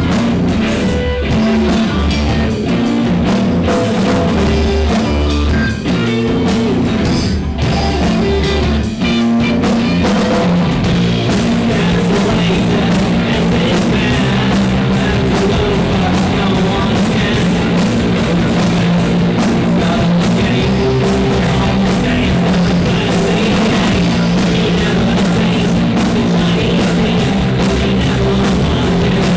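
Live rock band playing loud: electric guitar, electric bass and drum kit. The first ten seconds have stop-start hits with heavy bass notes and brief breaks. After that the band plays a steady, continuous full section.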